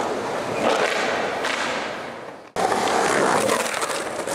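Skateboard wheels rolling on concrete, a steady rumbling roll that fades and cuts off abruptly about two and a half seconds in, then starts again at full level, with the board riding along the brick coping near the end.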